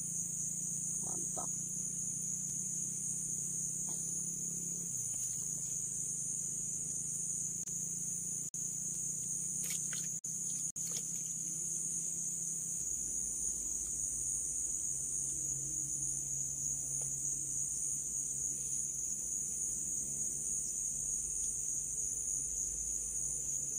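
A steady, high-pitched chorus of insects chirring, with a low steady hum underneath.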